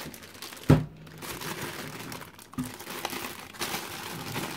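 Clear plastic bag crinkling and rustling as it is worked off an AIO liquid cooler's pump block and radiator, with a single sharp knock less than a second in.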